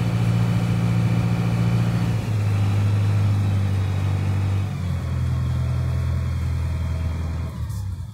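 A large engine running steadily with a deep hum, its pitch stepping down a few times.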